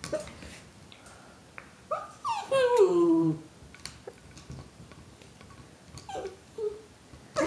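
Red noise-making dog toy ball going off as a small dog noses and mouths it: a loud pitched call slides downward for about a second and a half, starting about two seconds in, with a few short, fainter sounds and light knocks later.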